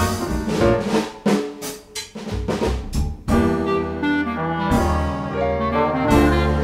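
Upbeat jazzy background music with brass and a drum kit.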